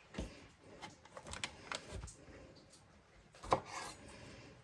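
Light knocks and rubbing of a knife and vegetables on a wooden cutting board, a few scattered taps with the sharpest about three and a half seconds in.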